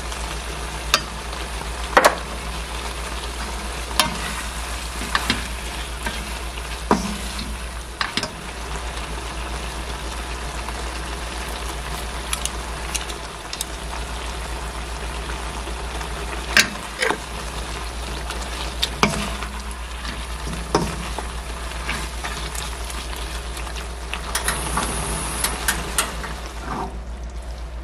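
Webfoot octopus, octopus and cabbage sizzling in a nonstick frying pan on a gas hob. A wooden spatula stirs them and knocks sharply against the pan now and then. The sizzle drops away near the end.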